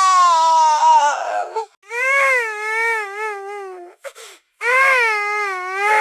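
Baby crying loudly: a long wail that falls in pitch, then, after short gasps for breath, two more wavering cries.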